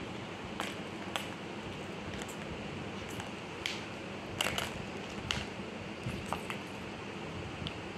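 Irregular light clicks and knocks of hard plastic as a cat paws the balls around a three-tier plastic ball-track cat toy, with a small cluster of clicks around the middle, over a steady low hiss.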